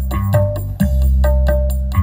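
Music played through a sound system of active 8-inch column speakers and dual active 12-inch subwoofers, on a playback test: heavy bass under a steady, quick beat.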